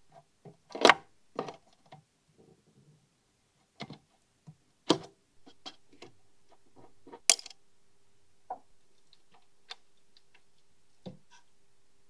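Scattered light clicks and taps of a soldering iron and wire on the metal terminals and chassis of a tube amp during soldering, irregular and a few seconds apart. A faint steady hum comes in about five seconds in.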